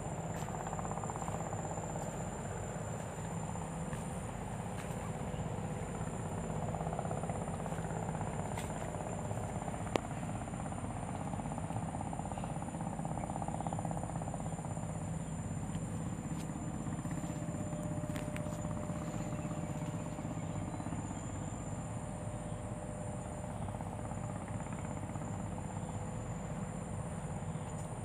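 Steady outdoor drone: a high, unbroken insect trill over a low, even rumble, with a few faint clicks.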